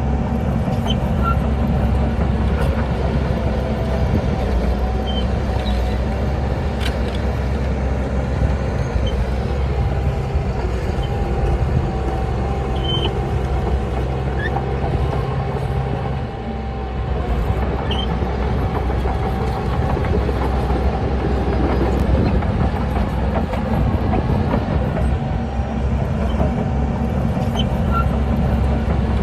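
Diesel engine of a Shantui DH17C crawler bulldozer running steadily under work. The engine note dips briefly about two-thirds of the way through, then picks up again, with a few short clicks over it.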